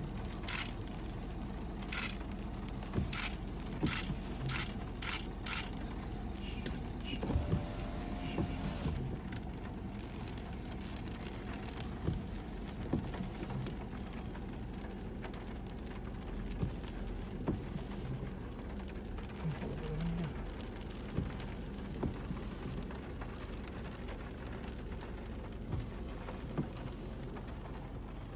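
Steady hiss and low rumble heard from inside a vehicle on a wet road in the rain. A series of sharp ticks sounds over the first six seconds.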